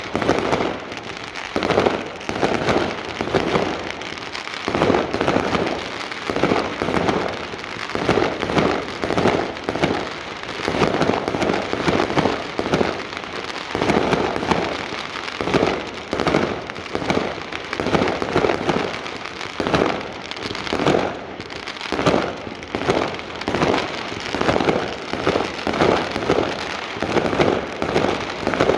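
Fireworks going off in a long, rapid barrage of bangs, more than one a second, without a break.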